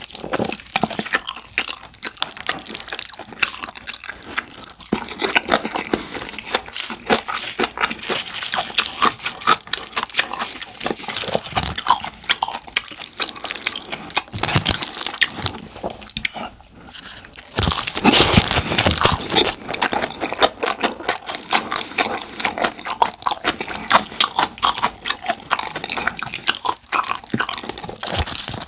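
Close-miked eating sounds: chewing and crunching mouthfuls of jjajang rice and curry rice, with a short lull before a louder stretch of crunching about eighteen seconds in.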